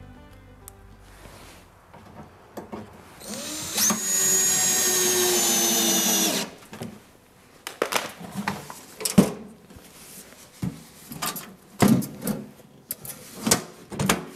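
Cordless drill driving a screw: the motor spins up about three seconds in, runs steadily for about three seconds and stops. Then a run of knocks and clunks.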